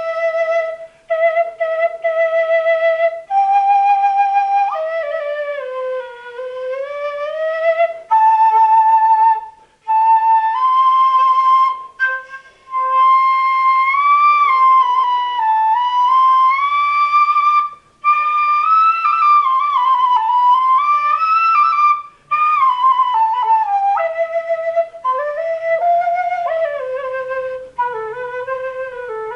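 Quena, the Andean notched end-blown flute, playing a solo improvised melody: held notes with vibrato, pitch slides down and up, and phrases broken by short pauses.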